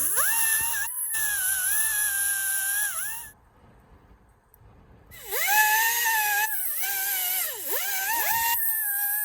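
Small high-speed rotary tool whining as it scrubs old silicone and dirt off the engine's timing-cover mating surfaces. It spins up, runs steadily, stops about three seconds in, then starts again about two seconds later, its pitch dipping sharply several times under load.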